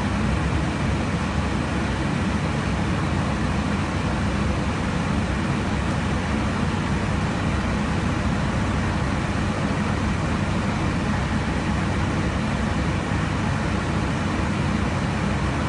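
Steady rushing cabin noise of an airliner in cruise flight: airflow and engine sound, deep and even, with no change.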